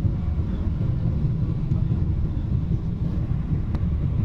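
Steady low rumble of an airliner's engines and rushing air heard inside the passenger cabin during the approach, flaps extended. A faint click near the end.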